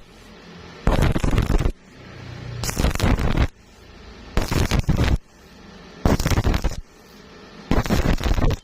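Electric welding arc crackling in five short bursts of just under a second each, struck and broken at a steady pace of about one every 1.7 seconds, as in stitch or tack welding.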